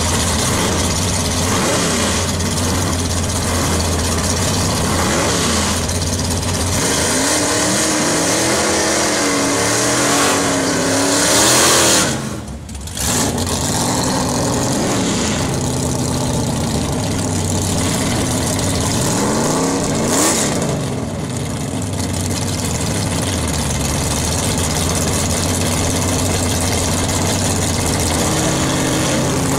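1963 Plymouth drag cars with 426 Max Wedge big-block V8s running at the drag strip, a loud lumpy idle broken by repeated revs that rise and fall in pitch. About twelve seconds in a louder rush of noise cuts off abruptly, and there is another short rise near twenty seconds.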